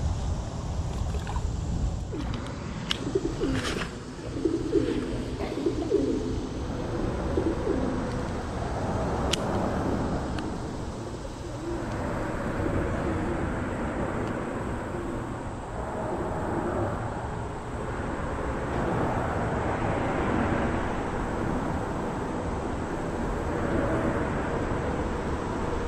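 A pigeon cooing several times a few seconds in, over a steady low rumble and hiss.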